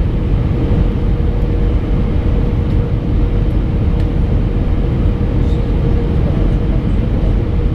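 Steady cabin noise inside an Airbus A319: a deep rumble of engines and airflow with a steady hum running through it.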